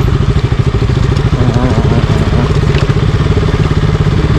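Single-cylinder 200 cc motorcycle engine running steadily at low speed on a dirt track, heard close up through a helmet-mounted camera, with a fast, even low pulse.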